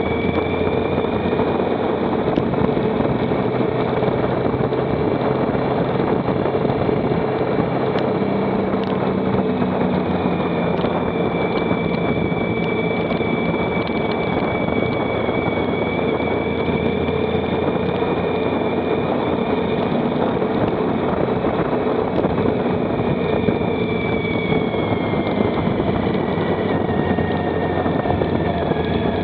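Motorcycle engine running at a steady cruise under a constant rush of wind noise, its pitch easing down slightly near the end.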